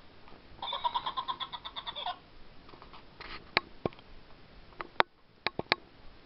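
Sound chip in a Minions hand-wash bottle playing a short electronic voice clip through its small speaker, the bottle's shake-triggered sound. The clip is a rapidly pulsing warble lasting about a second and a half. About five sharp clicks follow in the second half.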